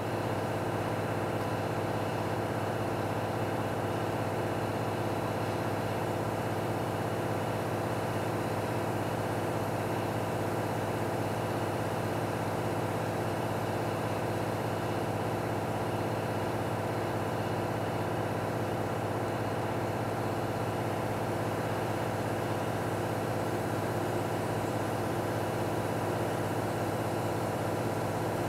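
A steady mechanical hum with a faint regular pulse, like an engine or motor running at a constant idle, unchanged throughout.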